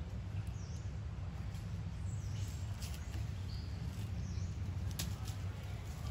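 Outdoor ambience: a steady low rumble with a few short, high chirps spread through it and a couple of sharp clicks.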